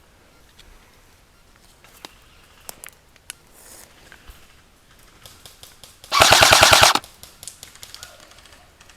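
Airsoft electric gun firing one short full-auto burst of about a dozen rapid shots, under a second long, about six seconds in. Fainter scattered clicks and ticks come before and after it.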